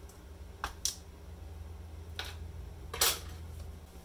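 Small sharp clicks and taps of laptop parts being handled as the old CMOS battery's wire connector is unplugged from the ThinkPad X40's board and the battery is set aside: four clicks, the loudest about three seconds in.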